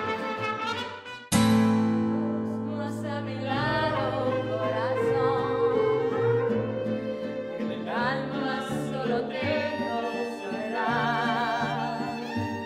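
Mariachi band playing and singing, strings and voice with a wavering vibrato. The music comes in abruptly and loud about a second in, after a brief dip.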